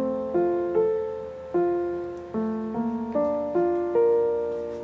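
Background piano music: unhurried notes struck one or two at a time, each left to ring and fade.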